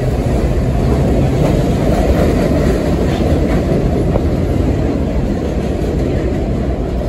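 Vintage New York City subway trains moving through an open-air station: a steady, loud rumble of steel wheels on the rails.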